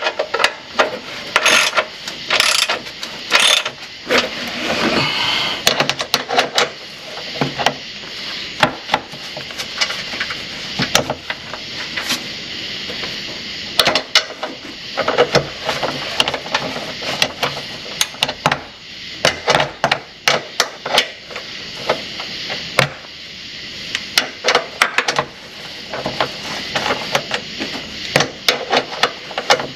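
Hand tools working on metal parts: irregular clicks, clanks and knocks, some in quick runs.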